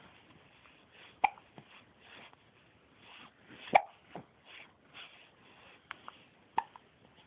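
Hiccups: three short, sharp hiccups, roughly two and a half seconds apart.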